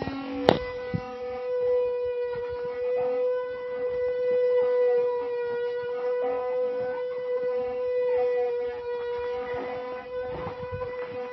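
The wooden axle of an ox cart 'singing' as it turns against its wooden bearing blocks: a steady, drawn-out whine with overtones, holding one pitch throughout. About half a second in there is a sharp click, and the pitch drops to the held note.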